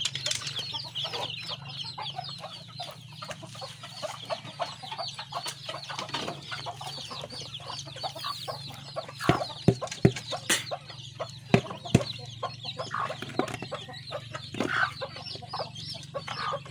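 A brood of chicks peeping rapidly and densely, with hens clucking. Several sharp knocks in the middle, the loudest sounds, as the bamboo coop is handled.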